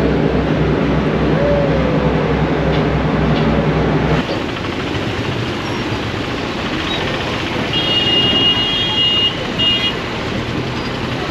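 A large engine's steady low throb, about four beats a second, which stops abruptly about four seconds in. It gives way to a rumble of motorbikes and scooters moving off the ferry, with a vehicle horn honking in a long blast and a short one near the end.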